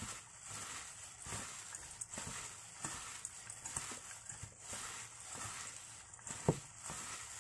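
A hand in a plastic glove mixing and squeezing chopped aromatics (garlic, shallots, ginger, lemongrass) in a stainless steel bowl: uneven wet squishing and rustling, with one sharper knock near the end.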